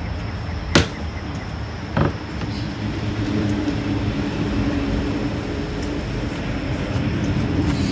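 Two sharp knocks about a second apart from wooden door trim being worked off the frame, over a steady low rumble. A low, steady engine-like drone comes in about three seconds in.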